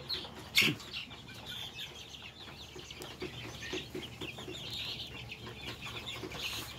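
A flock of young kampung chickens peeping and cheeping continuously, with low clucks mixed in. One sharp, louder sound about half a second in.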